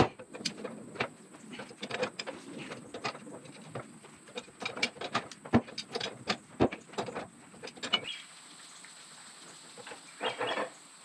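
Sharp metal clicks and clinks of a wrench working the Bobcat S250 lift cylinder's Loctite-coated nut loose, an irregular run of two to four clicks a second for about eight seconds. Then it goes quieter, with one short, louder burst of sound near the end.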